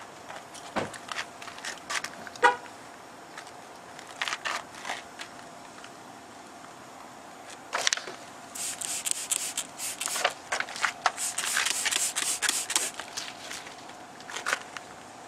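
Protective film being handled and worked onto a truck grille. There are scattered light clicks and taps, then a run of rapid, scratchy rubbing strokes from about eight to thirteen seconds in, over a faint steady hum.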